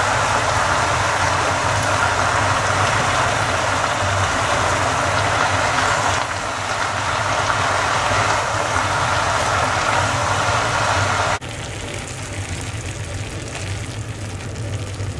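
Greens sizzling in a hot frying pan, a steady hiss over a low hum. The sizzle drops off abruptly about eleven seconds in and carries on quieter.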